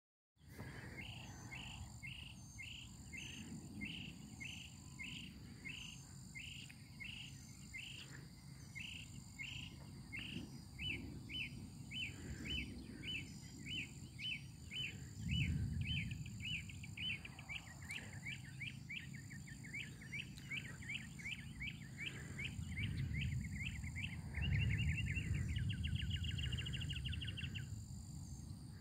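Outdoor chorus of chirping: a repeated chirp, about two a second at first, quickening to three or four a second and ending in a fast trill near the end, over a steady high insect buzz. Underneath, a low rumble swells a few times, most strongly about halfway through and again near the end.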